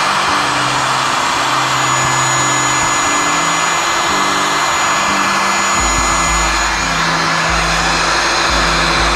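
Heat gun blowing hot air steadily onto heat-shrink tubing over the controller's wire connections: a constant airflow hiss with a faint fan whine. Background music plays under it, and its deep bass comes in about six seconds in.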